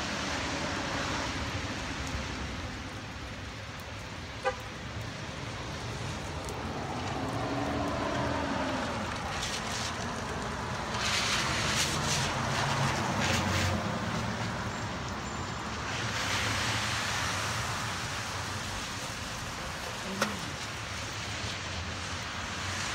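Traffic on a flooded, wet street: cars passing with tyres hissing through standing water over a steady wash of wet road noise, loudest around the middle. Two sharp clicks, one about a fifth of the way in and one near the end.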